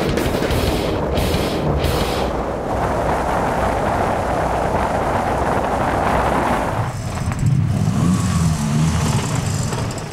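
Car driving fast: steady engine and road noise, which changes about seven seconds in to a lower, pitched engine note.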